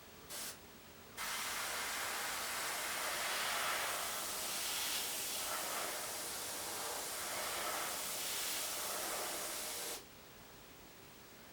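Airbrush spraying paint: a short blip of air, then a long steady hiss of about nine seconds that stops abruptly.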